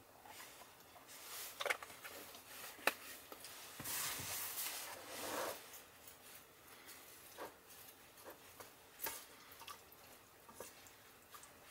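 Faint eating sounds: a paper drink carton handled, then eating utensils scraping and clicking in a mess tin. Scattered small clicks, with a longer rustling noise about four seconds in.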